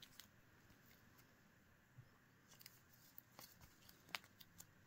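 Near silence, with faint scattered clicks and ticks of trading cards in cardboard sleeves being handled and shuffled in the hands. The clicks come more often in the second half, with one sharper tick about four seconds in.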